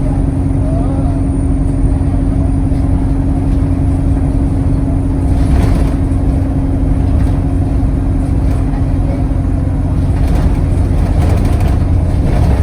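Alexander Dennis Enviro200 single-deck bus engine running under steady load, a constant low drone with a steady hum, and a faint high turbo whistle that fades out about two seconds in.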